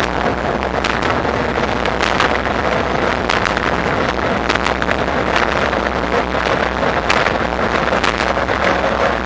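Wind buffeting the microphone of a moving e-bike with steady rolling noise, broken by frequent short clicks and rattles.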